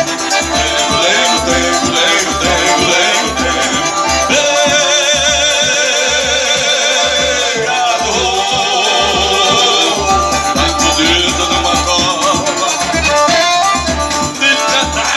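Forró music with a steady, regular bass beat and a melody on top, including a long wavering held note in the middle.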